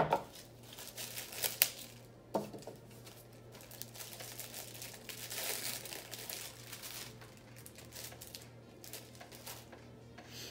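Clear plastic packaging crinkling and tearing as it is opened by hand, with a few sharp knocks in the first couple of seconds.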